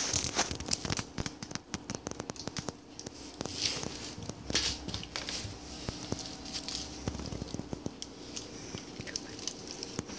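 Puppy caught in a mesh melon bag, scrabbling and wriggling on a tile floor: many quick clicks and scratches of claws on tile, with rustling scrapes of the netting.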